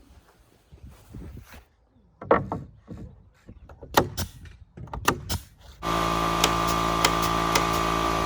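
Scattered knocks and thuds of fence-building work with wood. About six seconds in, a loud steady drone with a faint regular ticking starts abruptly.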